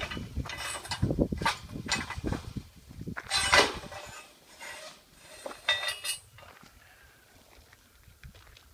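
Footsteps scuffing and crunching on a sandy dirt track, with a few light clinks among them. The steps thin out after about six seconds.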